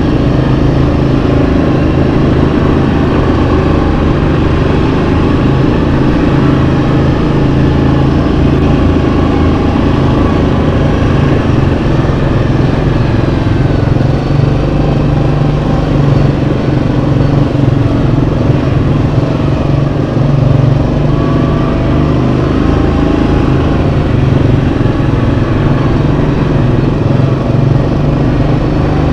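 Yamaha Kodiak 700 ATV's single-cylinder engine running steadily while riding, its pitch rising and falling gently with the throttle.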